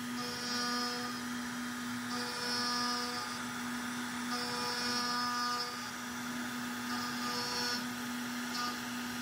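CNC router spindle running with a steady hum while a small end mill cuts aluminium plate. The higher ringing cutting sound comes and goes in four spells of about a second each, about two seconds apart, with a brief one near the end, as the tool moves in and out of the cut.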